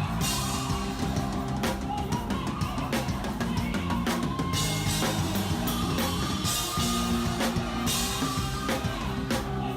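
Live band music with a busy drum kit playing hard under bass and guitar.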